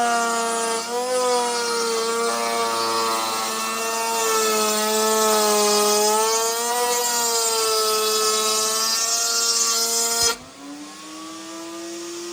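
Electric power tool working wood, its motor pitch dipping and wavering under load over a loud hiss of cutting. About ten seconds in the cutting noise stops suddenly and the motor runs on more quietly, rising in pitch as it comes off the wood.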